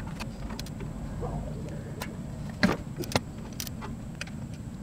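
Ratchet and 14 mm socket on the oil-pan drain bolt, being worked to break the bolt loose: a few scattered metallic clicks and clinks, the sharpest about two and a half seconds in.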